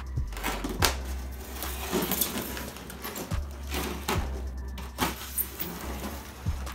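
A knife cutting the packing tape along the seam of a styrofoam shipping case: uneven scraping strokes of blade against tape and foam, broken by sharp clicks.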